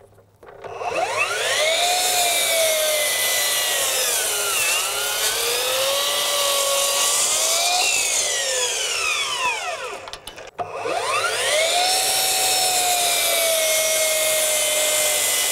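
Bosch PROFACTOR 18V Surgeon 12-inch glide miter saw's cordless brushless motor spinning up with a soft start and cutting through a 2x12, its whine sagging in pitch as the blade loads in the wood and recovering. About ten seconds in the motor dies away briefly, then spins up again and runs steadily.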